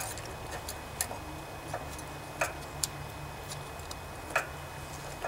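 A metal hand tool clicking and clinking against the rocker arms of a 16 hp Briggs & Stratton single-cylinder OHV engine after the valve lash adjustment: about seven sharp, irregularly spaced clicks.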